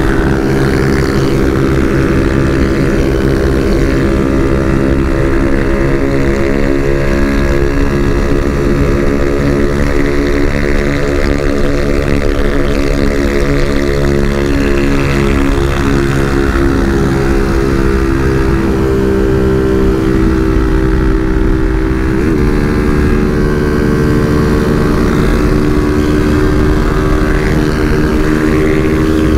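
Small-displacement motorcycle engine running steadily at cruising speed under the rider, with wind rushing past. The pitch drifts slowly and shifts briefly about two-thirds of the way through.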